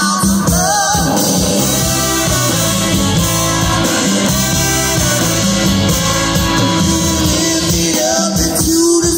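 Live band playing an upbeat rock-and-roll number with guitar over a steady bass and drum groove, with women singing near the start and again near the end.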